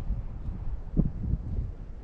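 Strong wind buffeting the microphone: an uneven low rumble that rises and falls in gusts, with one stronger gust about a second in.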